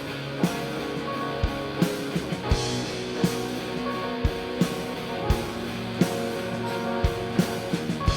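Live rock band playing an instrumental passage without vocals: electric guitars, bass and keyboard holding chords over a steady drum beat.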